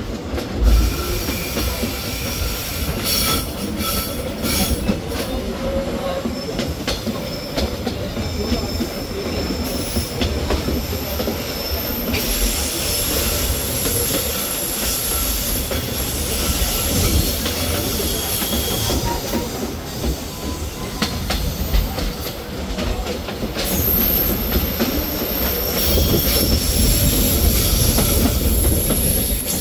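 SE5 passenger train rolling along the track with a steady rumble and clatter of wheels on rail. High-pitched wheel squeal comes and goes, loudest in the last few seconds, typical of the wheels grinding through tight curves.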